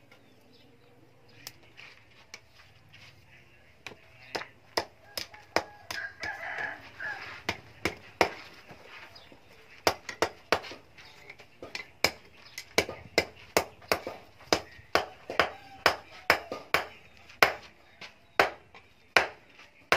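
Hand hammer striking red-hot rebar on a steel post anvil. The blows are sparse at first, then settle into a steady run of about two a second from about ten seconds in.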